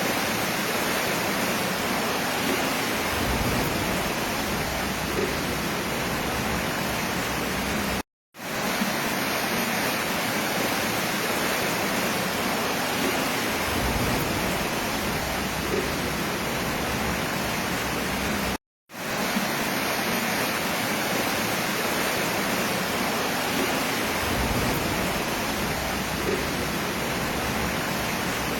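Steady rushing of flowing floodwater, an even noise with no pauses in the flow, broken by two brief silences about 8 seconds in and about 18 seconds in.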